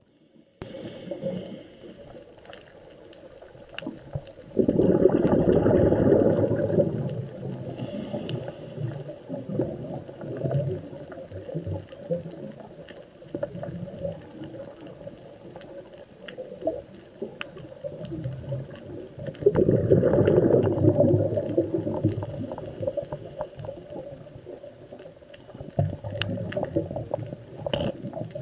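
Underwater sound of a scuba diver's regulator exhaust: three loud bursts of bubbling, about 5 seconds in, about 20 seconds in and near the end, each lasting a couple of seconds. Between them is a quieter low underwater rumble with scattered faint clicks.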